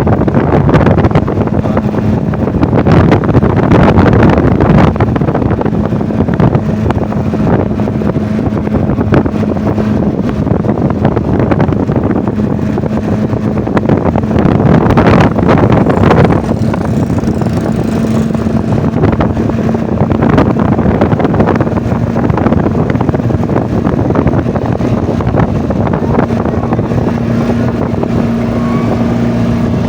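Off-road vehicle engine running steadily while driving, with wind buffeting the microphone; the engine pitch rises slightly near the end.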